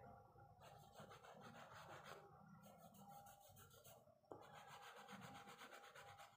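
Faint rubbing of fingertips and a soft pastel stick on paper, blending and laying on colour in stretches with brief pauses. One sharp tick comes about four seconds in.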